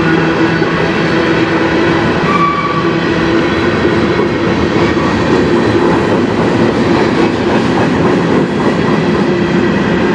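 Covered hopper cars of a freight train rolling past at close range: a steady, loud rumble of steel wheels on rail with a steady low hum, and a brief higher tone about two and a half seconds in.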